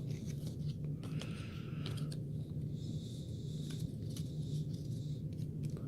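Trading cards and their packaging being handled: soft sliding, rustling and light taps, with a longer rustle from about three seconds in, over a steady low hum.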